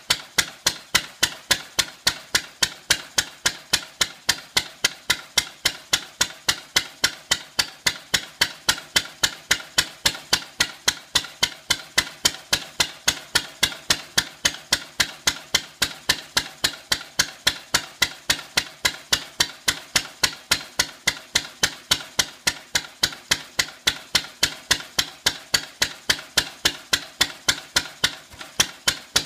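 Lister A Junior A28S single-cylinder petrol stationary engine running on its first start after restoration, firing with a sharp, even bang about three times a second. Its timing and fuel settings are still only roughly set.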